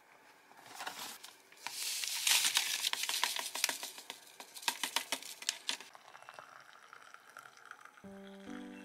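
Instant soup sachet being torn open and shaken out over a ceramic mug: a dense run of quick plastic crinkles and crackles as the powder falls in. Near the end it changes to a softer, steady pouring sound as water is poured into the mug, and music starts just before it ends.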